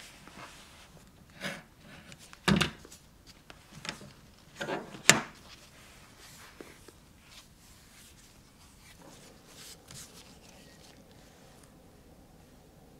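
Leather strip cut with a knife along a steel ruler on a cutting mat: a few short scrapes and sharp knocks in the first five seconds, the loudest about five seconds in.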